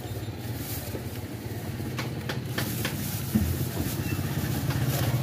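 Motorcycle engine idling with a steady, fast low putter that grows louder near the end, with a few short clicks about two seconds in.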